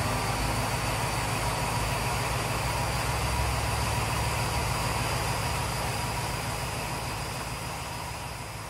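Diesel engine of a DGS 62 N dynamic track stabiliser, a rail-borne track maintenance machine, running steadily as it travels along the track: a low rumble with a faint steady whine, fading out near the end.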